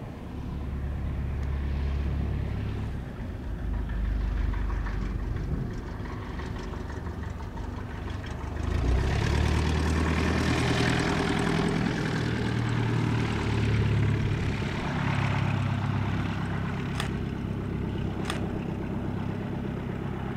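Swearingen SA227-TT Merlin twin turboprop landing, its Garrett TPE331 engines and propellers heard as a low rumble that swells louder from about eight seconds in as the plane comes close over the runway. Two sharp clicks near the end.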